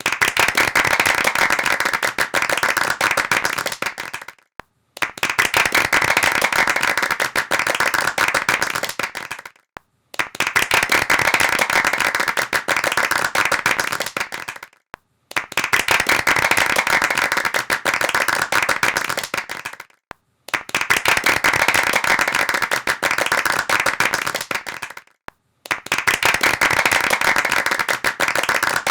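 Applause: dense, rapid hand clapping in repeated runs of about four and a half seconds, each broken off by a half-second gap of silence.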